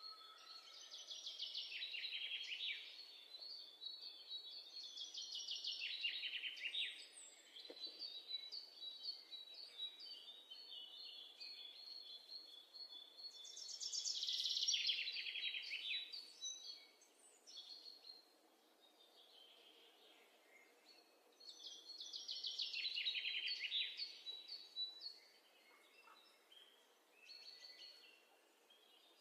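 A bird singing: high, rapid trilled phrases that come back every several seconds, about four times, with softer chirps and twitters in between.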